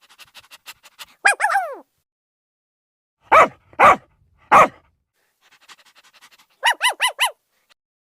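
Dog barking: a short yelp falling in pitch, then three loud barks about half a second apart, then four quick yips near the end, with faint rapid ticks in the gaps.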